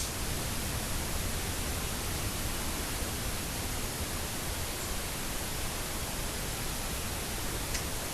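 Steady, even hiss with no distinct events, and a faint tick near the end.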